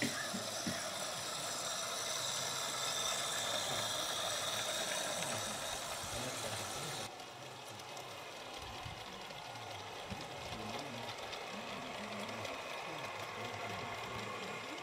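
Small garden-railway model trains running on the track: a faint motor whirr and wheel rattle. A steady high hiss stops abruptly about seven seconds in.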